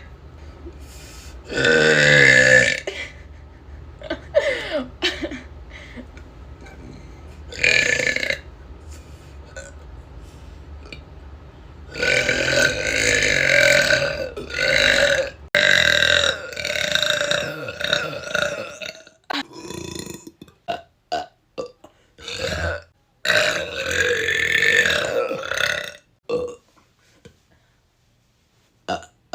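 People belching loudly, about half a dozen burps spaced a few seconds apart. Several are long and drawn out, and the first falls in pitch.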